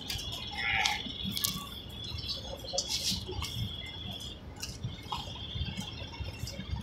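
Scattered light clicks, taps and scrapes from hand tools and buckets being worked on a deck surface during resin-and-sand coating, over a steady low rumble and a faint steady high whine.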